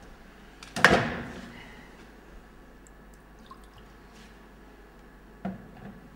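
A sharp knock about a second in that rings and dies away over about a second, then a softer double knock near the end.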